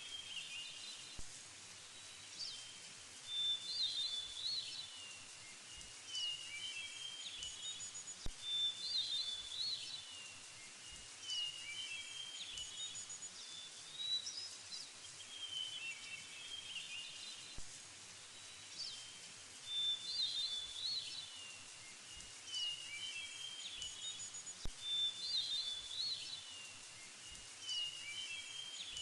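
Birds chirping and singing in short phrases that repeat every two to three seconds, over a steady background hiss.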